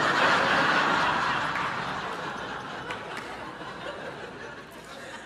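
Theatre audience laughing at a stand-up punchline, swelling at the start and dying away gradually.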